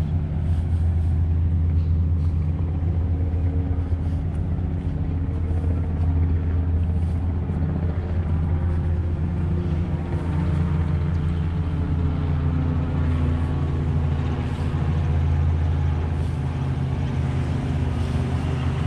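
Steady low mechanical hum, like an engine running at constant speed, holding one pitch throughout.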